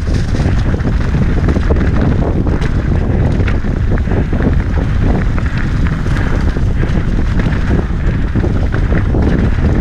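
Wind buffeting the microphone on a fast mountain-bike descent, a steady low rush mixed with the tyres running over dry, loose dirt. Scattered short clicks and rattles come from the bike jolting over the rough trail.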